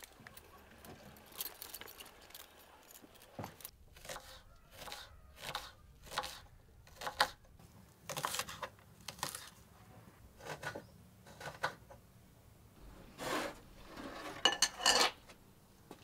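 Kitchen knife dicing an onion on a wooden cutting board, with separate chopping strokes about one every half second to a second. Near the end comes a short cluster of louder knocks.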